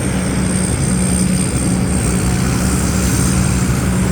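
Combine harvesters' engines and machinery running steadily: a constant low drone with a thin high whine above it.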